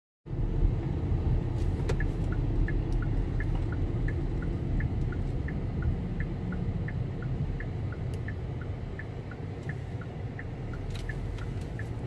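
Car cabin sound while driving: a steady low road and engine rumble. From about two seconds in, the turn-signal indicator ticks in an alternating high-low pattern, about three times a second.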